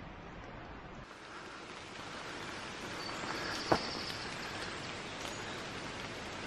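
Steady hiss of rain and running water in a wood, a little fuller from about a second in, with one sharp click a little past halfway.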